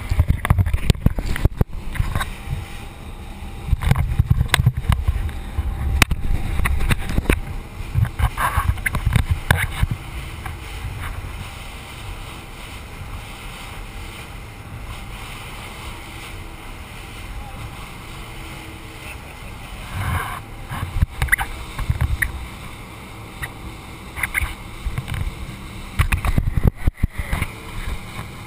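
Rigid inflatable boat running fast over a choppy sea: a steady rush of engine and water, with heavy bursts of wind buffeting the microphone and scattered sharp knocks. The sound is heard through a waterproof camera housing.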